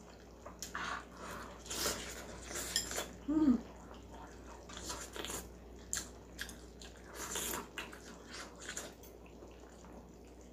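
Close-up eating sounds from a spam kimchi hot pot meal: irregular chewing, smacking and small wet clicks, with a short hum-like murmur about three and a half seconds in.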